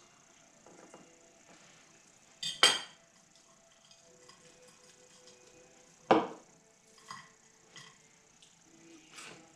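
Cutlery and dishes clinking on the table. There are two sharp knocks, a double one about two and a half seconds in and a louder one about six seconds in that rings briefly, with lighter clicks between.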